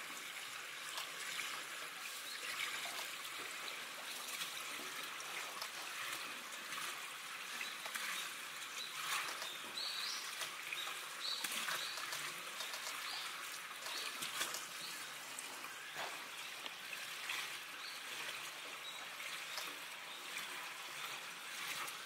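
Steady trickling of running water into a pool, with a few short high chirps about halfway through.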